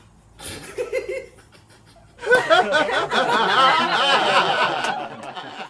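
Several people laughing and snickering, with a few short vocal sounds first. The laughter breaks out loudly about two seconds in and goes on until it cuts off abruptly.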